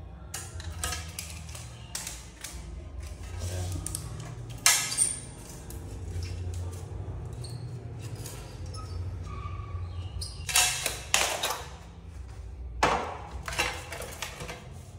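Irregular knocks and scrapes, the loudest about four and a half seconds in and a cluster of them between ten and fourteen seconds in, over a low steady hum.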